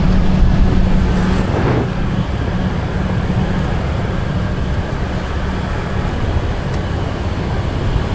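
Vehicle moving along the road: steady engine and road noise, with a low engine hum that drops away about a second and a half in.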